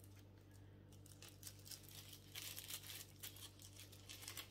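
Faint rustling and crinkling of tissue paper being unwrapped by hand, in quick irregular crackles that grow busier about halfway through.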